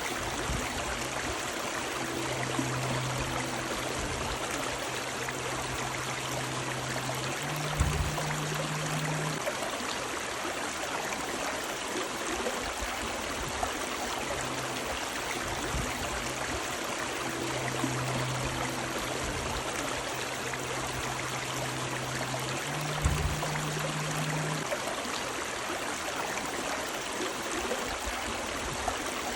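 River water running steadily over rocks. Twice, a low hum swells for several seconds, and a dull thump comes partway through each swell.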